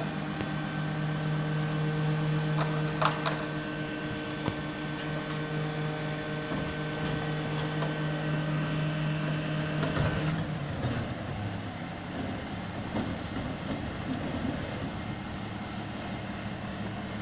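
Garbage truck running with a steady drone, with a few short clanks about three seconds in. About ten seconds in the drone drops to a lower pitch and gets slightly quieter.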